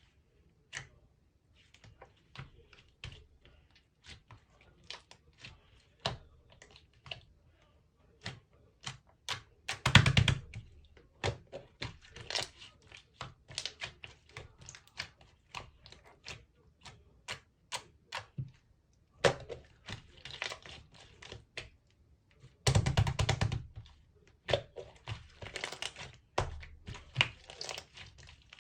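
Slime being pressed and worked by hand, giving a string of irregular sticky clicks and pops, with denser squelching bursts about ten seconds in and again near the end.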